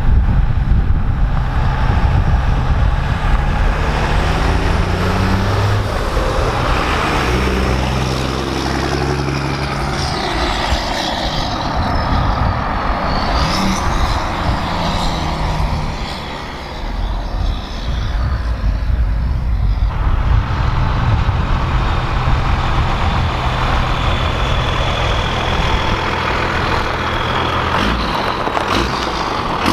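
Cummins 12-valve diesel with a 5-inch downpipe-back straight-pipe exhaust, very loud. It pulls hard several times in the first half, its pitch rising with each pull, then runs steadily as the truck comes up close.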